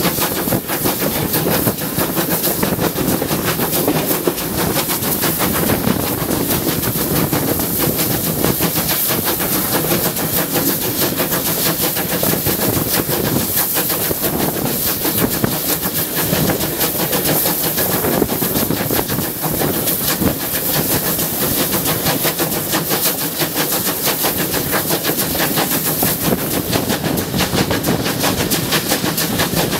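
GWR 0-6-0 pannier tank steam locomotive hauling the train on the move, heard from the coach right behind it: steady rapid chuffing and the clatter of wheels on the rails, with wind buffeting the microphone.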